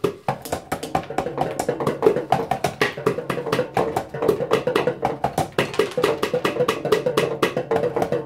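Chopsticks drumming quickly on homemade drums: thin skins stretched over a bowl and a plastic tub, struck in fast, uneven taps at several strokes a second.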